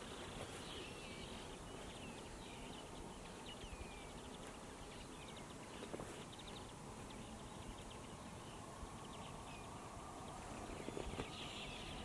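A large winter flock of finches, greenfinches and linnets, twittering from overhead wires: many short scattered chirps and trills, with a thicker burst of twittering about eleven seconds in, over a steady low background noise.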